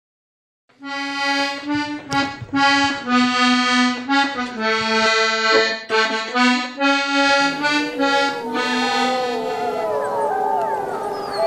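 Intro music: a lively melody of short, held notes. About eight seconds in, howling comes in over the music, several wavering voices crossing, ending in one long falling howl.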